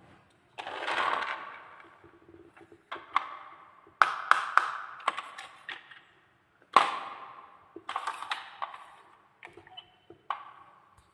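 Marbles clacking and rolling through a wooden marble run: clusters of sharp knocks, each with a short ringing tail, coming every second or so.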